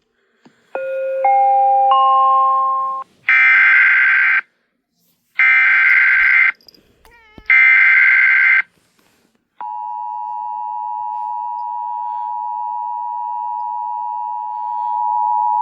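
Emergency Alert System tones: a three-note rising chime, then the three short, harsh digital SAME header bursts about a second apart, then the steady two-tone attention signal that opens a severe thunderstorm warning broadcast, held from about ten seconds in and getting louder near the end.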